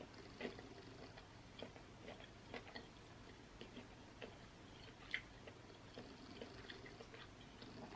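Faint eating sounds of a person chewing seafood-boil food close to the microphone: soft, irregular mouth clicks and smacks, one a little louder about five seconds in.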